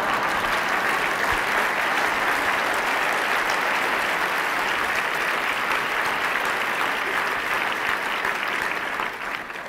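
Large audience applauding, a steady clapping that begins to die away near the end.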